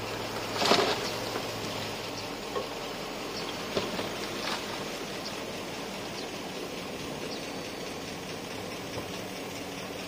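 A heavy construction machine's diesel engine running steadily under a hiss of noise, with a few sharp knocks, the loudest just under a second in.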